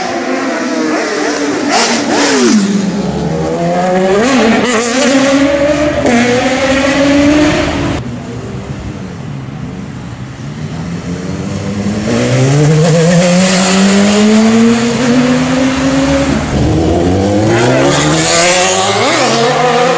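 BMW S1000RR inline-four sportbike engine revving hard, its pitch sweeping up and down several times. It drops quieter for a few seconds near the middle, then climbs in pitch again.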